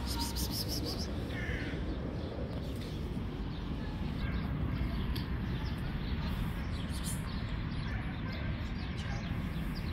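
Steady low outdoor background rumble, with a short animal call about one and a half seconds in and faint bird chirps.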